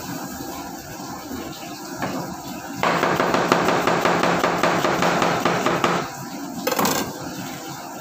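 Kitchen knife rapidly chopping onion on a cutting board: a fast, unbroken run of knocks lasting about three seconds, starting about three seconds in, followed a little later by a short burst of noise.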